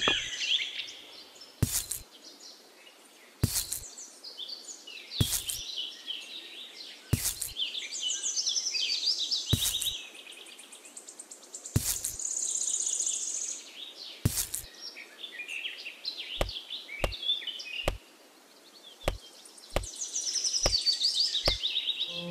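Birds chirping and singing in repeated bursts of quick, high notes, with a sharp tap every two seconds or so and several lighter, quicker taps in the second half.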